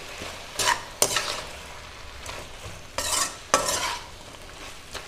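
A metal spatula stirs brinjal and potato pieces coated in spice powders around a metal kadai, with a few scraping strokes against the pan over a low sizzle of the vegetables frying in oil.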